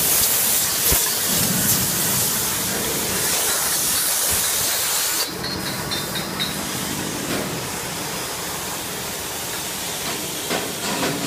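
DCGF32-32-10 carbonated drink filling machine running, a steady hiss over the clatter of the machinery. The hiss falls away about halfway through, leaving the lower running noise of the bottle conveyor, with a few sharp clinks near the end.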